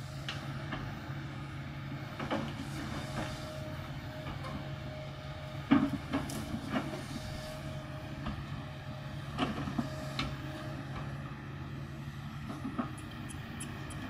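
Kobelco crawler excavator's diesel engine running steadily under load while it digs into the hillside, with scattered sharp clanks and knocks from the bucket and tracks. The loudest knock comes about six seconds in.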